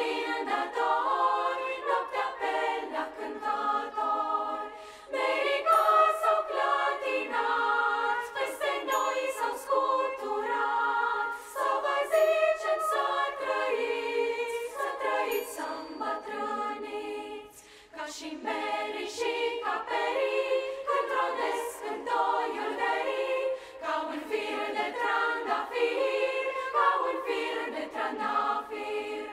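Children's choir singing a Romanian folk-style song in several parts, in phrases separated by short breaks.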